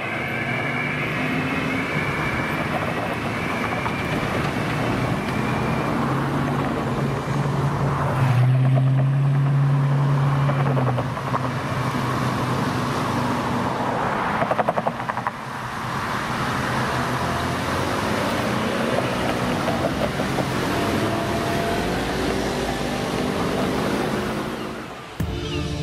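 City street traffic: cars and other vehicles driving past with engine and tyre noise. A heavier engine drones loudly for a few seconds about a third of the way in.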